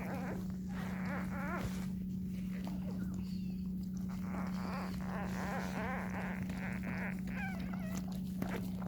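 Newborn puppies squeaking and whimpering in several short, wavering high-pitched cries, over a steady low hum.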